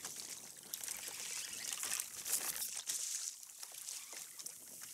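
Sea water splashing and trickling around a kayak as a hooked sea bass is brought alongside, with many small clicks and knocks scattered through it.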